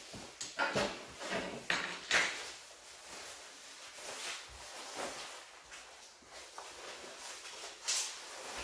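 Irregular knocks, clatter and scrapes of metal parts being handled, loudest in the first couple of seconds and again near the end.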